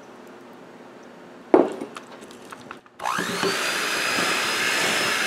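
A sharp thump about one and a half seconds in, followed by a few small clicks; then, about three seconds in, a handheld electric mixer switches on, its whine rising quickly as the beaters spin up and then running steadily as it beats eggnog into creamed butter and sugar in a glass bowl.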